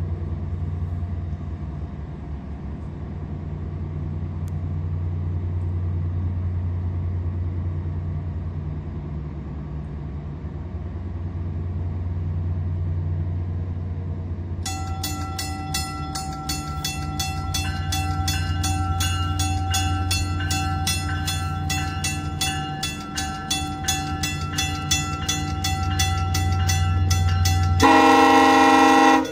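Exo commuter train's diesel locomotive idling with a steady low drone. About halfway through, its bell starts ringing with rapid repeated strikes. Near the end a horn blast, the loudest sound, lasts over a second.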